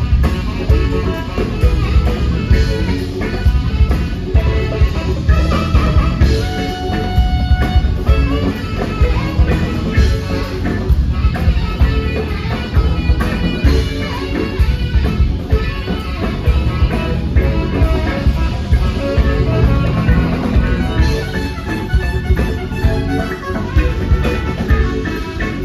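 Live band playing an instrumental number: drum kit keeping a steady beat under bass, electric guitar and Hammond organ, with no singing.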